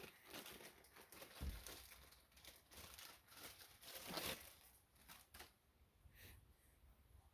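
Faint crinkling and rustling of packaging being handled, in short scattered bursts, with a soft thump about a second and a half in; it dies away after about five and a half seconds.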